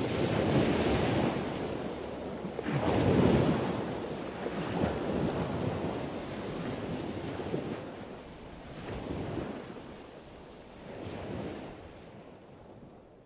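Ocean surf, a rushing wash that swells in several surges and fades out near the end.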